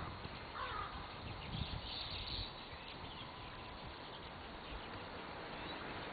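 Wild birds calling over a steady background hiss: a short call about half a second in and higher calls around two seconds in.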